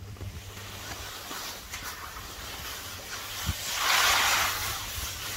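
Skis scraping over packed snow: a hiss that swells and fades about four seconds in, over a low rumble of wind and handling on the microphone.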